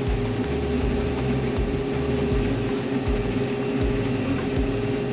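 Combine harvester running steadily while harvesting soybeans: a constant mechanical hum with an uneven low throb, and frequent short sharp ticks at irregular intervals.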